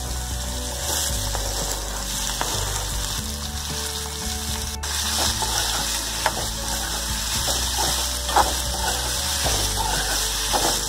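Diced cucumber sizzling in hot oil with cumin and mustard seeds in a metal kadhai. A steel spoon stirring the pieces scrapes against the pan a few times in the second half.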